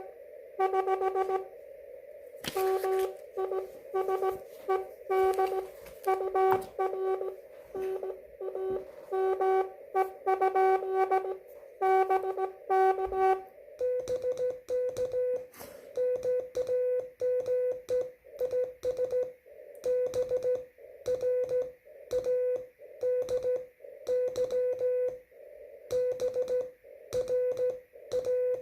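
Slow-speed Morse code (CW) on an amateur radio transceiver: short and long beeps keyed over a steady hiss of band noise. A lower, buzzier tone sends for about the first fourteen seconds, then a slightly higher, cleaner tone takes over, as the two stations of the contact take turns.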